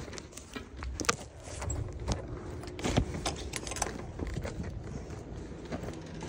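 Footsteps on snow with light metallic clicks and jingles about once a second, then a steel door's knob is turned and the door opened.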